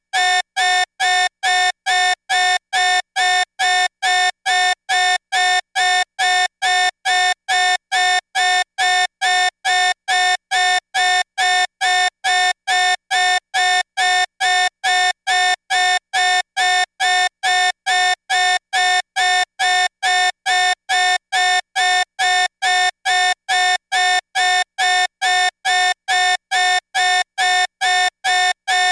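Electronic danger alarm beeping: a buzzy, mid-pitched beep repeated evenly about twice a second, each beep identical and unchanging.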